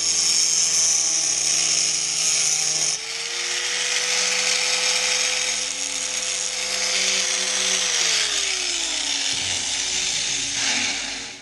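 Angle grinder cutting through a steel motorcycle exhaust pipe, a loud shrill grinding that carries on steadily, with a shift in its sound about three seconds in.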